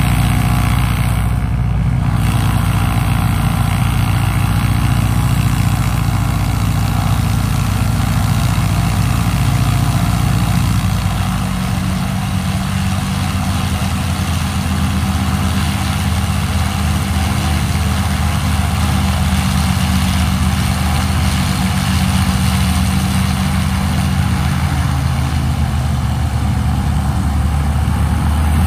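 North American T-6 Texan (SNJ) taxiing, its nine-cylinder Pratt & Whitney R-1340 Wasp radial engine running steadily at a low idle.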